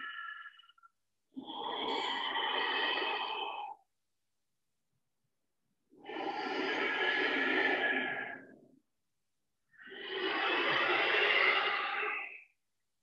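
Ujjayi yoga breathing, drawn slowly through a narrowed throat: three long, audible breaths of about three seconds each, with short silent gaps between.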